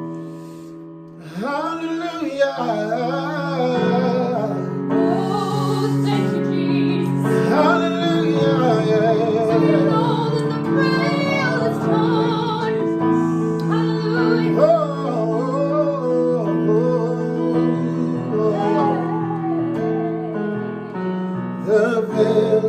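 Gospel worship song: a woman singing a wavering, drawn-out melody over held keyboard chords, her voice coming in about a second in.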